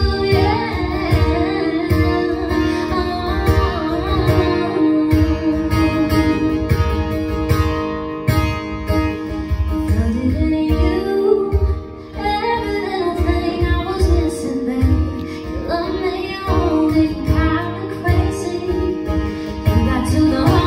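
A woman singing live while strumming an acoustic guitar in a steady rhythm.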